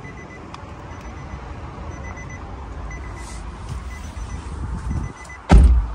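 Warning chime of a 2013 Infiniti G37 Convertible beeping repeatedly, a short high beep about once a second, typical of a door-open or key reminder. A single loud thump comes near the end.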